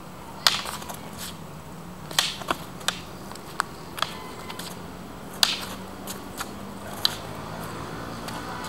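Wooden practice rapiers clacking against each other in sparring: an irregular string of sharp knocks, some in quick pairs, the loudest about half a second in, about two seconds in and about five and a half seconds in.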